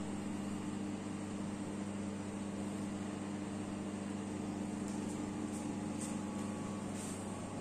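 Steady electrical hum over a light hiss, with a few faint light clicks between about five and seven seconds in.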